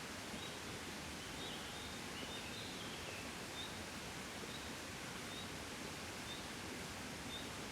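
Soft, steady breeze blowing, with a bird's short high call repeated about once a second and a brief twitter of falling notes around two seconds in.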